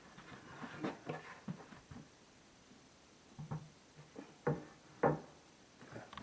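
Irregular knocks and clicks of cabinet parts and hardware being handled during assembly, the two loudest knocks about four and a half and five seconds in.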